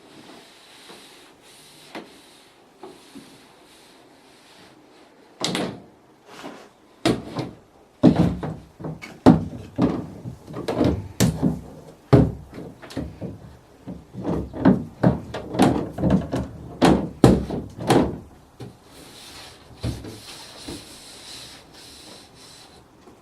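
Window being cleaned by hand: a dense run of knocks, thuds and rubbing strokes against the glass and frame from about five seconds in to about eighteen seconds, then softer rubbing.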